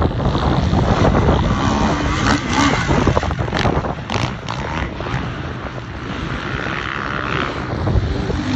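450-class motocross bikes running on the track, engines revving, with wind rumbling on the microphone.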